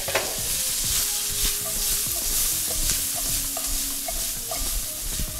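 Dried anchovies, sliced onion and red chilli sizzling in hot oil in a wok while the wok is shaken and the food tossed, with a few light knocks from the pan.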